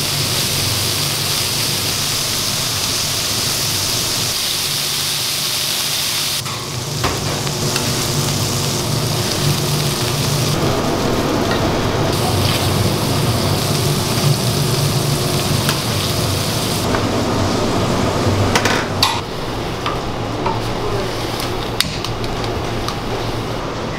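Cheese-topped beef patties sizzling on a flat-top griddle, a steady hiss for the first six seconds or so. Then come scraping and clinking from a metal spatula and plates, with a steady low hum underneath and a few sharp clinks near the end.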